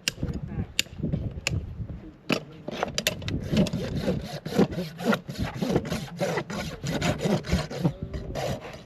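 Farrier's rasp filing down a horse's hoof in repeated back-and-forth strokes. The strokes are sparse at first and come several a second from about two seconds in.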